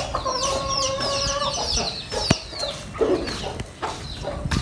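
Chickens clucking, with one drawn-out call in the first second and a half and many short high chirps throughout. A single sharp tap comes a little past two seconds.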